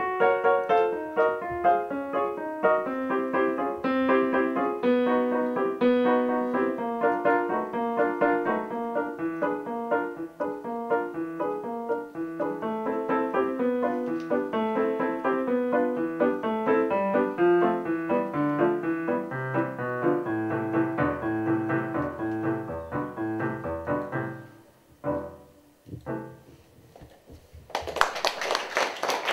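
Solo piano piece played on a Korg digital piano: a steady run of notes, thinning out after about 24 seconds to a few low notes and final chords. Applause breaks out just before the end.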